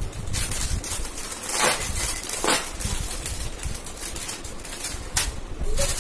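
Plastic snack packet crinkling and rustling as it is handled, in several short bursts, over a low background rumble.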